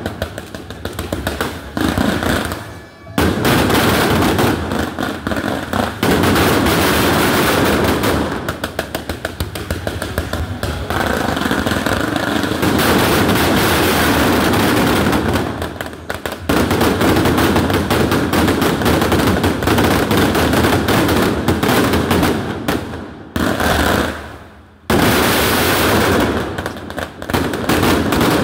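Daytime fireworks going off in a dense, continuous barrage of bangs and crackling as coloured-smoke plumes and aerial bursts are fired, with a couple of brief lulls.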